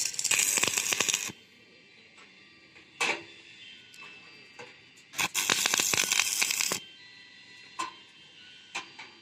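Stick-welding arc with a 6013 rod crackling in two short bursts, each about a second and a half long, like tack welds on a steel tube frame, with a sharp knock about three seconds in.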